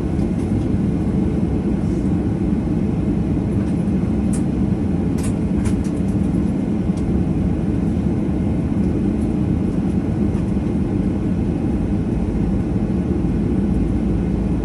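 Steady low rumble of a Boeing 737-800 cabin on the ground, with a few faint ticks about four to six seconds in.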